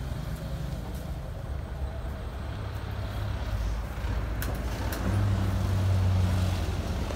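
Motor vehicle engine running, with road traffic noise. About five seconds in, a steady low engine hum comes in louder.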